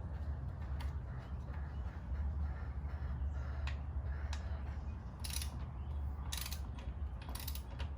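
Ratchet wrench clicking in short spells as the rear-wheel hardware on a motorcycle is snugged up before torquing, with three quick runs of clicks in the second half. A steady low hum underneath.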